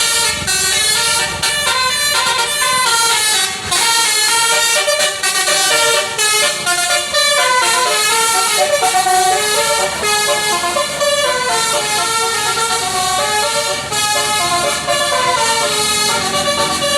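A bus's basuri musical air horn playing a continuous melody, its notes stepping up and down in quick succession.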